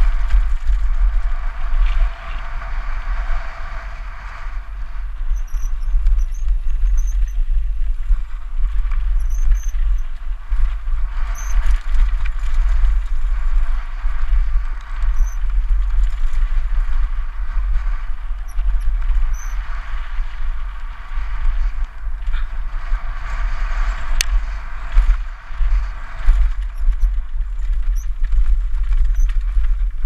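Wind buffeting a helmet-mounted action camera's microphone in a loud, constant low rumble, over the rattle and crunch of mountain bike tyres rolling fast down a gravel trail. Short high squeaks come and go throughout.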